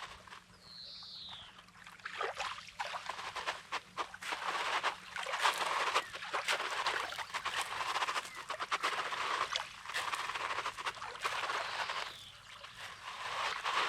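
Small sea waves washing in over rocky sand, a swell of hiss with a scatter of small clicks and rattles that rises about two seconds in and dies back near the end. A single short bird call falling in pitch sounds about a second in.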